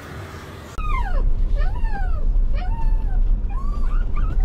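Gulls giving repeated wailing calls that glide up and down in pitch, over heavy wind rumble on the microphone that starts abruptly under a second in.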